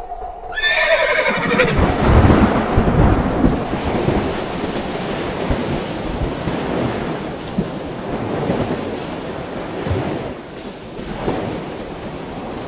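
Cinematic film-trailer sound effects: a horse whinnies about half a second in, falling in pitch, then a long, low, noisy rumble swells up, loudest in the first few seconds, and slowly eases off.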